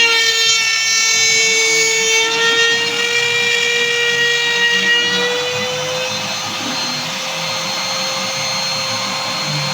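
CNC machine spindle running with a steady high whine over a hissing cutting noise; the pitch rises slightly about five seconds in.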